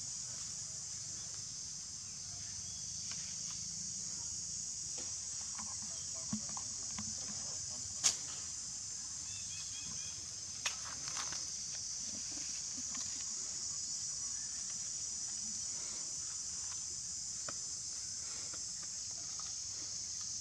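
Steady high-pitched drone of an insect chorus, with a few sharp clicks, the loudest about eight seconds in.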